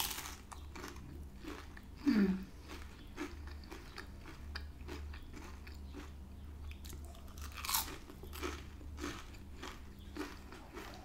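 Crunching bites into a crispy beer-battered onion ring, then chewing. A loud crunch at the start and another about three-quarters through, with small crackly crunches in between.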